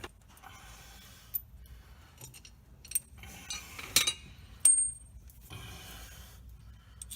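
Metal clinks and scrapes of a slide hammer's bolt and nut being worked into a pilot bushing. There are sharp clicks about three and four seconds in, and a short ringing ping just before five seconds.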